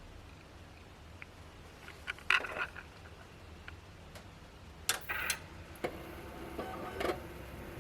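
A few sharp clicks and short bursts of clatter, as of small hard parts being handled, over a steady low hum; the hum gets a little louder near the end.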